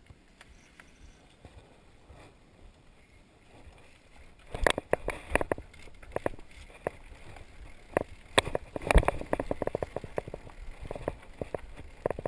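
Mountain bike clattering over rocky singletrack, heard close up from the handlebars: irregular knocks and rattles of the chain, frame and tyres on stones, starting about four and a half seconds in after a quiet stretch.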